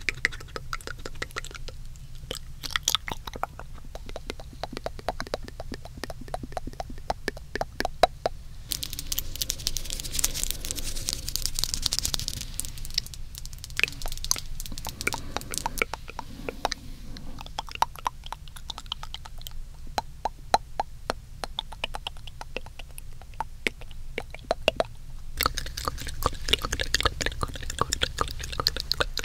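Close-up wet mouth sounds on a binaural microphone: rapid, irregular tongue clicks and lip smacks, with a breathy hiss for a few seconds about nine seconds in and again near the end.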